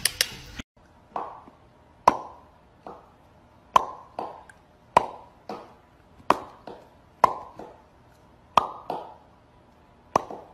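A series of sharp taps, each followed by a duller knock, repeating about every second to second and a half.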